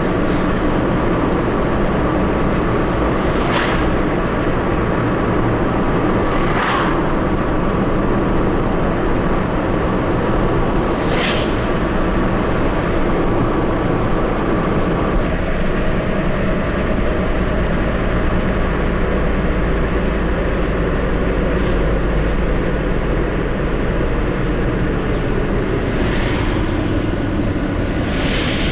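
Steady engine and tyre-on-road noise of a Mercedes-Benz car driving, heard from inside the cabin, with a few brief whooshes of passing cars.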